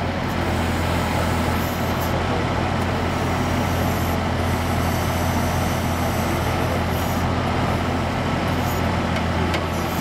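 Avant 528 compact loader's diesel engine running steadily with a low, even hum while it powers the hydraulic backhoe attachment digging.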